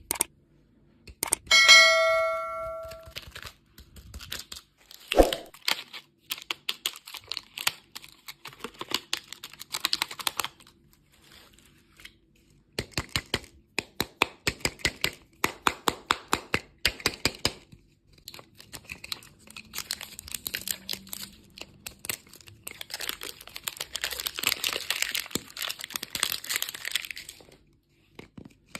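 Candy packaging being unwrapped by hand: plastic wrappers crinkling and crackling in quick runs of clicks, with a longer tearing sound near the end. A short ringing ding sounds about two seconds in.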